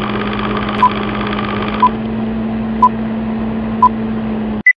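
Film-countdown sound effect: a steady whirring hum with a short beep once every second, four times, then a single higher-pitched beep near the end as the hum cuts off abruptly.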